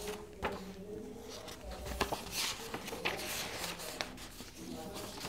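Quiet room tone with faint rustling and a few soft clicks, as of handling or cloth brushing near a clip-on microphone, over a faint steady hum.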